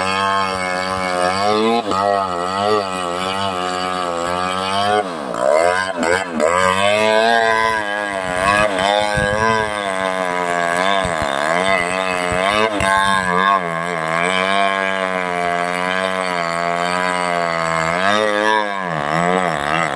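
Chainsaw running under load in a felling cut through a large tree, its engine pitch wavering and dropping sharply several times as the chain bogs down in the wood.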